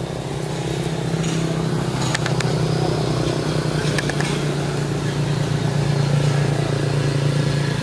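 A motor running steadily, a low, even hum that swells slightly toward the end, with a few faint clicks about two and four seconds in.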